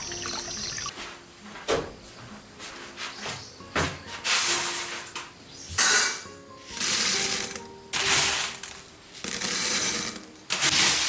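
Repeated short rasping strokes, roughly one a second, with light clinks, over soft background music.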